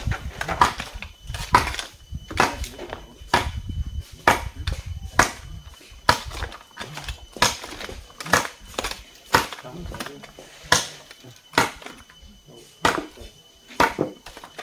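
A steady run of sharp tool strikes on wood or bamboo, about one a second, each with a short ring, as the frame of a bamboo chicken hut is worked.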